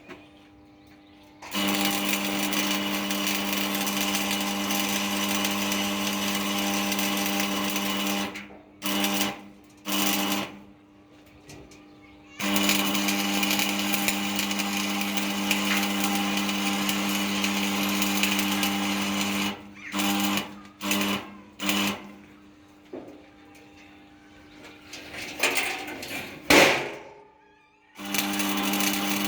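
An electric power tool's motor running at a steady pitch in long stretches and short trigger bursts, switched on and off repeatedly, with one louder sweeping noise near the end.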